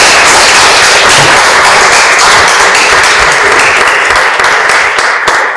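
Audience applauding: many hands clapping at once in a loud, dense patter.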